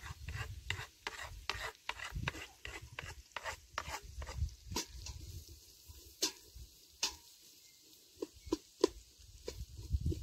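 Wooden spoon stirring and scraping in a metal cooking pot, with food scraped off a wooden cutting board: a quick run of short scrapes for the first few seconds, then a few sharper taps spaced out.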